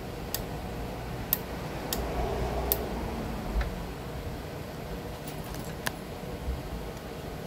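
The plastic handle housing of a Ryobi 40-volt mower is being worked apart by hand. About half a dozen sharp plastic clicks and snaps come at uneven intervals over a low rumble of handling.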